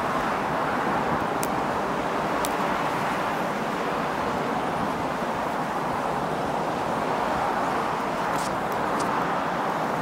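Steady rush-hour road traffic on a multi-lane highway: a constant wash of many cars' engines and tyres. A few faint ticks sound now and then.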